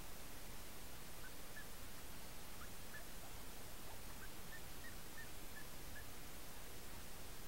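Faint, short calls from ducks on the water, scattered at first and then a quicker evenly spaced run of about five, over the steady hiss of a trail camera's microphone.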